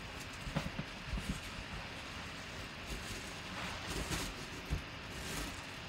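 Bubble wrap and plastic wrapping rustling and crinkling in short, scattered bursts as hands pull a wrapped helmet out of a cardboard box.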